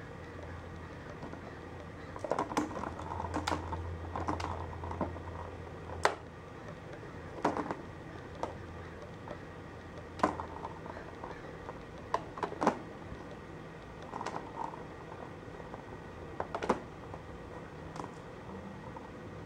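Plastic balls clicking and clattering around the Petstages Cheese Chase ball track as a kitten bats at them, in irregular flurries of sharp clicks. A low steady hum lies under the first half.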